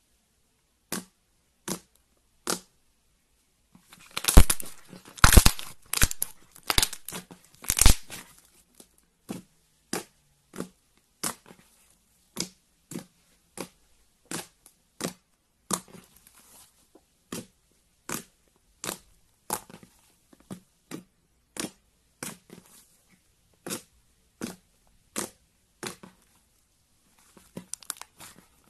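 Slime being pressed and squeezed by hand: a steady series of short sharp pops, a little more than one a second, with a louder stretch of dense crackling and tearing for about four seconds near the start.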